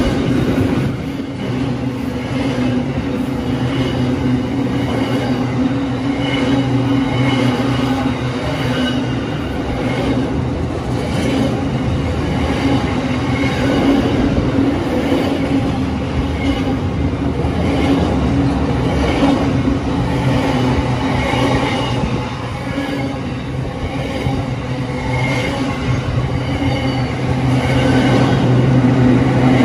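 Freight train's container wagons rolling past close by: a steady rumble of steel wheels on rail, with irregular clicks as the wheels cross rail joints.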